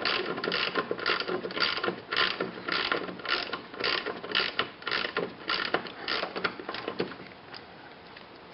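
Socket ratchet clicking in quick back-and-forth strokes, about two a second, as a drain plug is run back in; the clicking stops about seven seconds in.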